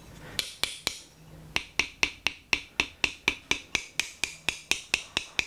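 Small metal tool tapping rapidly against a wooden plane tote, a few slower strikes at first and then about four sharp, lightly ringing taps a second: the new repair wood is being dented to give it the look of age.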